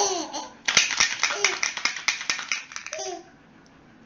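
Laughing and babbling voices, children's among them, in loud bursts with a quick run of sharp clicks through the middle. About three seconds in it drops to a faint hiss.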